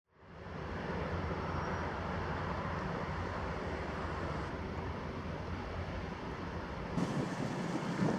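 Steady low engine rumble of a passing inland vessel under a rush of outdoor noise, with low gusts of wind on the microphone near the end.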